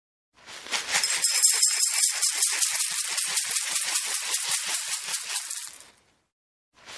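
Dense, rapid rattling with a hiss to it, fading in about half a second in and dying away near six seconds, then a second of silence.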